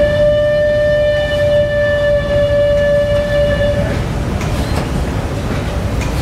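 A horn sounding one long, steady note for about four seconds, over a low rumble.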